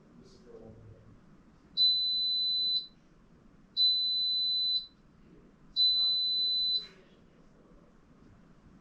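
Electrolux EW6S404WU ecobubble washing machine beeping three times, each a steady high beep about a second long, about two seconds apart: the signal that the wash programme has finished.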